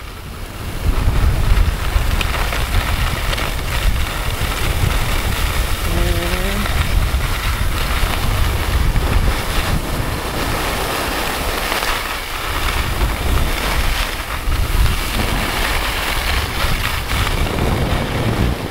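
Wind buffeting the microphone of a camera carried by a skier going downhill, a steady rumble over the hiss of skis sliding on groomed snow.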